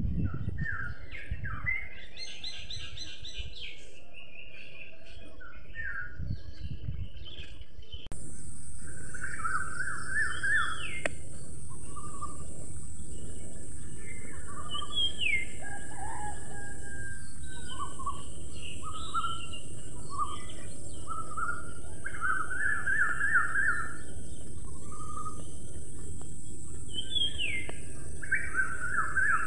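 Small birds chirping and singing, in short repeated trills and quick rising notes. About eight seconds in, the sound gets louder and a steady high-pitched hiss joins in.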